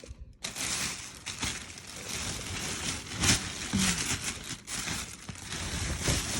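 Packaging being handled by hand: continuous crinkling and rustling with sharp crackles, the loudest about three seconds in, as a new handbag is unwrapped.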